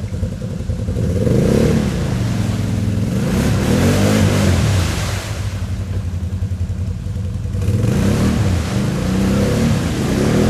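Can-Am Renegade ATV's V-twin engine revving up and down over and over while the quad sits bogged down in deep mud, its Maxxis Zilla mud tyres spinning and churning.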